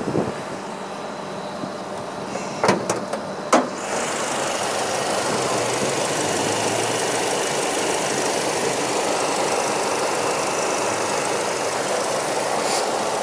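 2007 Chevy Colorado's engine idling smoothly, with a few sharp clicks about three seconds in as the hood latch is released and the hood raised; after that the idle is heard more plainly from the open engine bay.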